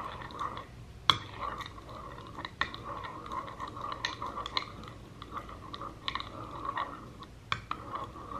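Metal spoon stirring glue and water in a ceramic bowl: a steady sticky stirring with irregular clinks of the spoon against the bowl, the sharpest about a second in and another near the end.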